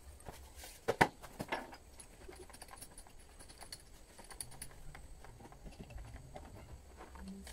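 Handling sounds of a power drill being picked up off a wooden workbench and a bit fitted into its chuck by hand: a few sharp knocks about a second in, the loudest, then scattered light clicks. The drill's motor is not running.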